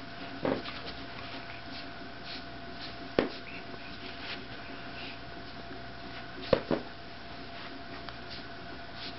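A raccoon and a dog scuffling on carpet: light rustling and ticking, with a few sharp knocks, one about three seconds in and a quick pair a little past six seconds, over a steady faint hum.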